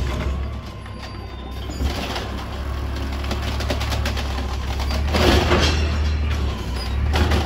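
2011 Autocar refuse truck's engine running with a steady low hum, with a louder rush of noise a little past five seconds in.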